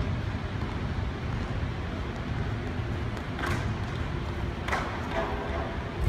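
Pole vault attempt over a steady low room rumble: a swishing impact about three and a half seconds in as the pole is planted, and a sharp thud just under five seconds in as the vaulter lands on the foam pit. A short voice calls out near the end.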